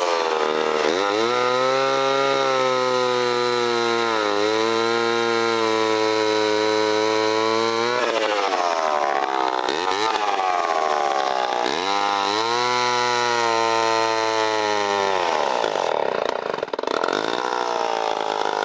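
Homelite C-7 vintage two-stroke chainsaw held at high revs for about eight seconds, falling back, then run up again for a few seconds before dropping off near the end.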